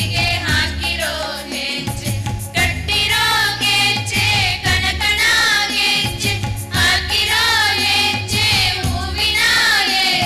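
A group of young women singing a song together into stage microphones, the melody wavering with vibrato, over a steady low accompaniment.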